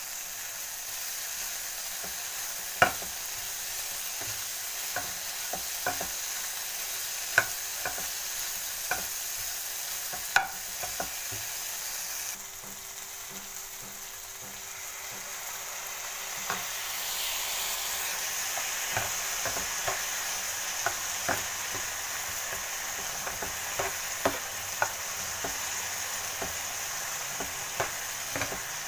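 Chicken pieces with onion and capsicum sizzling in oil in a non-stick frying pan, stirred with a steel slotted spoon that clicks and scrapes against the pan. About twelve seconds in the sizzle drops as water is poured into the pan, then builds back up a few seconds later.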